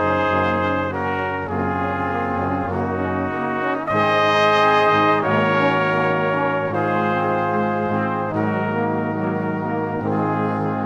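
Background music led by brass instruments, playing held notes and chords that change every second or so.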